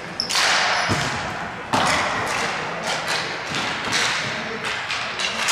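Ball hockey play: sticks clacking and the ball thudding, with two loud hits about a third of a second in and just under two seconds in, each ringing on briefly.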